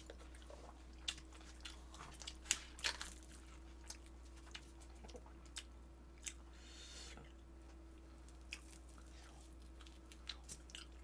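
Faint eating sounds: chewing with soft, scattered mouth clicks and smacks, a few louder ones in the first three seconds, over a low steady hum.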